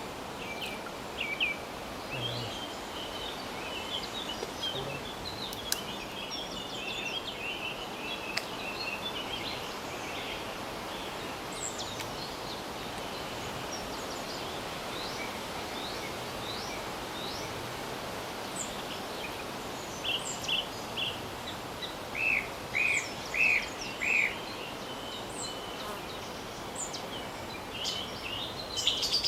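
Small birds chirping and calling over a steady outdoor hiss, with a run of four or five loud, short repeated notes near the end.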